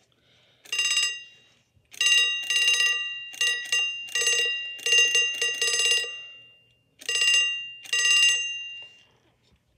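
A 1964 Big Ben alarm clock's bell, rung by rapid hammer strikes in about six stop-start bursts of varying length. The bell tone lingers and fades after each burst.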